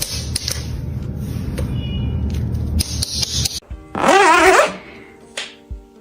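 Background music, with a brief, loud warbling call about four seconds in.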